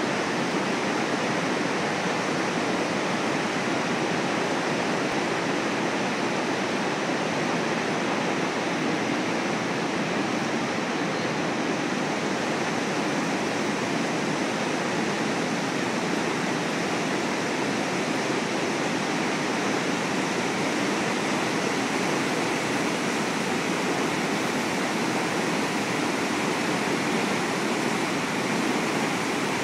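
The Mississippi River in flood pouring over the St. Anthony Falls spillway and churning below it: a steady, even rush of high water at about 30,000 cubic feet per second.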